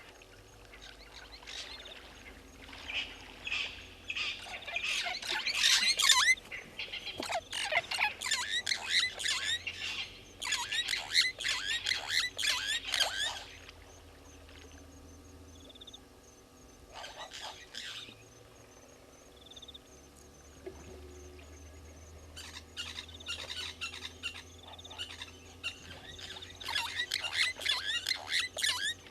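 Birds chirping and calling in quick, rapid runs of falling notes: one long bout, a short burst in the middle, and another bout that starts up again near the end.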